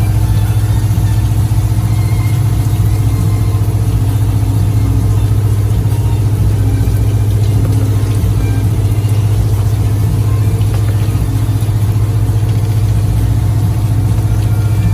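Motor boat's engine running steadily, a loud low drone that does not change.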